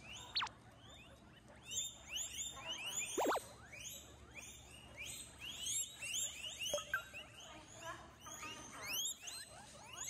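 A group of guinea pigs wheeking: a few single squeals at first, then from about two seconds in a dense chorus of many short, overlapping rising squeals.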